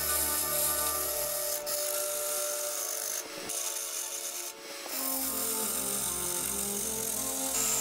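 A turning tool cutting into a spinning ash vase on a wood lathe: a steady scraping hiss as shavings come off, with background music underneath.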